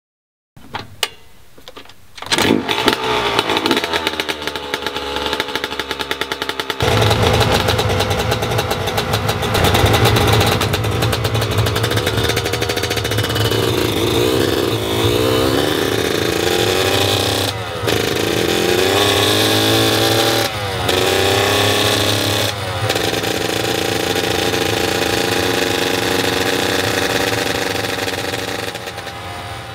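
Freshly rebuilt Yamaha YZ125 two-stroke single started and then running on a dyno without load, revved up and down, with three brief gaps in the second half. It is being heat-cycled to break in the new top end.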